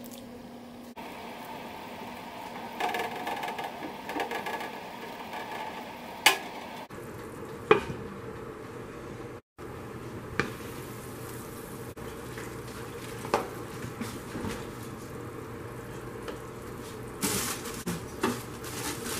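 Cooking at a stockpot: broth splashing and bubbling as food is added and moved about, with several sharp clinks of a utensil and a glass lid against the metal pot, the last few close together near the end.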